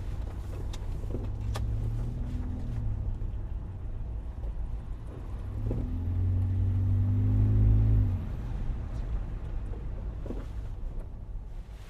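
Car driving, with steady engine and road rumble. The engine note rises and grows louder as the car accelerates about halfway through, then eases off about two-thirds of the way in.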